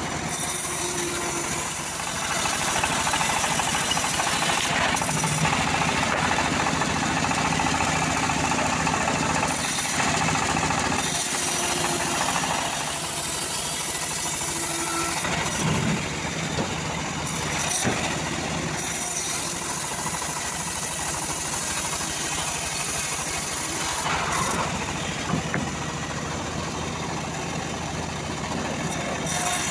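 Homemade bandsaw sawmill running and cutting through a teak log: a steady machine drone with the noise of the blade in the wood.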